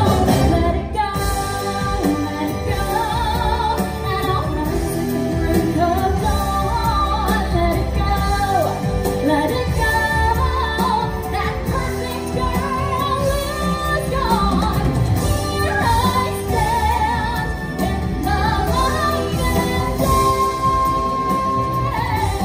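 A woman singing a show tune over backing music, her voice wavering with vibrato through the phrases and ending on one long held high note near the end.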